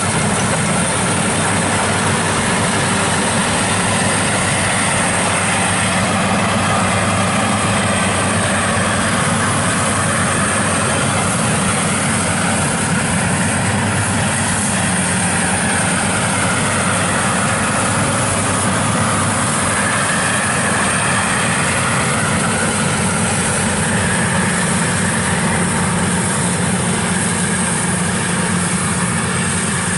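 WD102 rice combine harvester running under load as it cuts and threshes rice: a loud, steady engine and threshing drone whose pitch slowly rises and falls.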